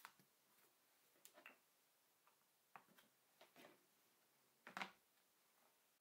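Faint, scattered taps and knocks of hands handling materials on a worktable, with one louder knock a little before the end.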